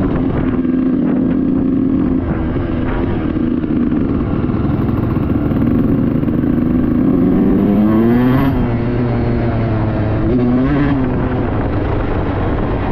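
Suzuki RM125 two-stroke single-cylinder dirt bike engine running under way, revving up and back down twice, a little past the middle and again near the end.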